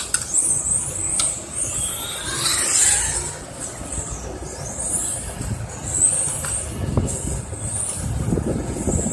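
1/10 electric RC touring cars (a Tamiya TRF419 and a Serpent S411 on 13.5T and 8.5T brushless motors) lapping the track. Their high-pitched motor and gear whine rises and falls again and again as they accelerate and brake through the corners.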